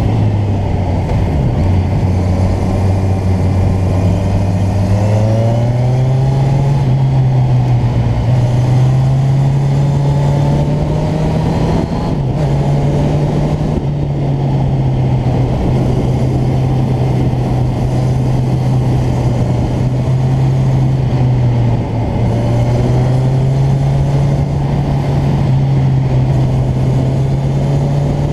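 Motorcycle engine running under way, its note climbing and stepping back down in pitch several times as the rider accelerates and changes gear. A steady rush of wind noise lies under it.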